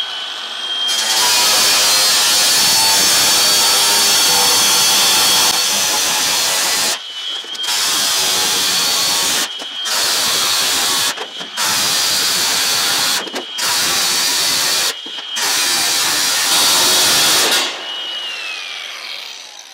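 Milwaukee cordless disc cutter slicing lengthwise through a corrugated steel cladding sheet, in about six loud runs separated by short pauses. A steady high motor whine carries on between the cuts and drops in pitch as the tool winds down near the end.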